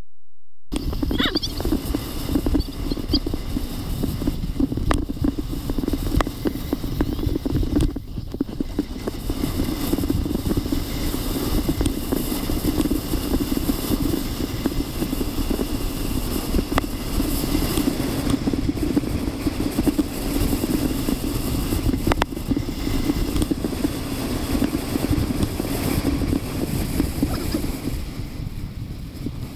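Runners of a natural-track luge (rodel) scraping and rumbling steadily over packed snow at speed, starting suddenly under a second in and easing a little near the end as the sled slows.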